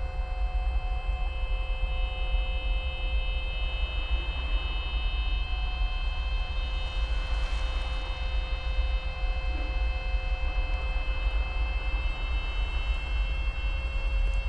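Wind buffeting an outdoor microphone: a heavy, fluttering low rumble, with a few faint steady whining tones above it.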